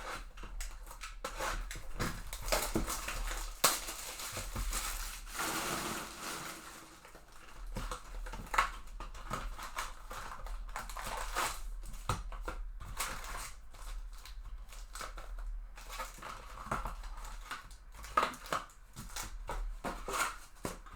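Trading card hobby box being opened by hand: plastic wrap crinkling and tearing, cardboard and foam packing rustling, with a few sharp clicks.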